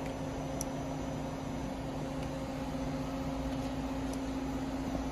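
Daewoo Puma 240 MSB CNC turning center running with a steady hum and a constant whine while its main spindle is driven under C-axis control.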